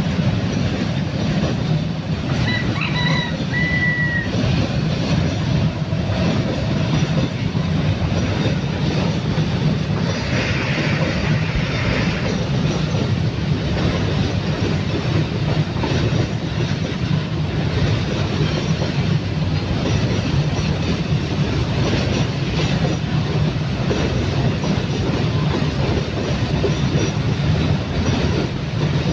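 Loaded coal train rolling past, its wagons' wheels clacking over the rail joints in a steady heavy rumble. A brief high squeal comes about three seconds in.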